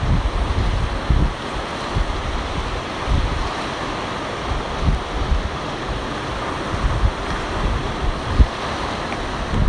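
Ocean surf washing on the shore as a steady rush, with wind buffeting the microphone in repeated low gusts.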